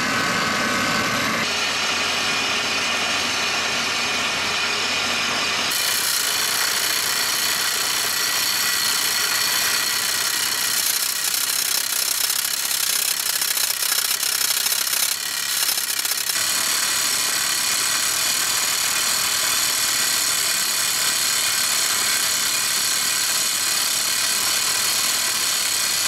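Furukawa hydraulic crawler rock drill drilling into rock, a loud steady percussive machine noise with the rig's engine running underneath. The sound shifts abruptly about one and a half and six seconds in.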